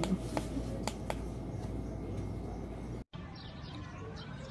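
Quiet room noise with a low hum and a few faint clicks, then an abrupt cut about three seconds in to fainter outdoor ambience.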